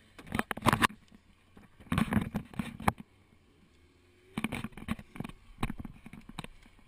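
Handling noise from a handheld camera as someone gets into a car: rubbing, rustling and small knocks against the door and interior trim. It comes in three short bursts with quiet gaps between them.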